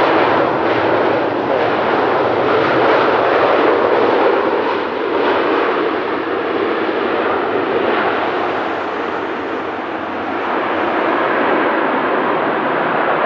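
Jet airliner engine noise close by: a loud, steady rushing noise that eases a little about ten seconds in, then builds again.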